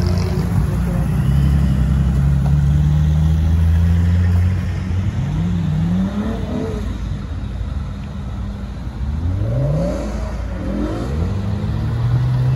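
Cars, mostly older BMW 3 Series, driving past one after another: a close engine running at low, steady revs, then engines revving up as cars accelerate away, once midway and twice more near the end.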